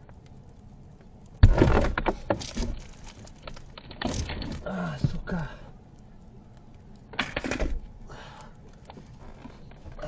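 Thuds, knocks and rattles from a person clambering about inside a wrecked car's cabin. A loud thump about a second and a half in is followed by a run of knocks, and another loud clattering burst comes about seven seconds in.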